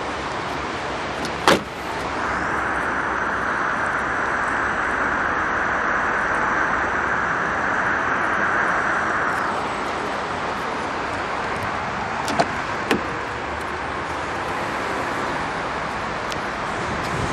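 A car's small electric motor runs steadily for about seven seconds after a sharp click, as a power-operated part moves, then stops. Two short clicks follow a few seconds later.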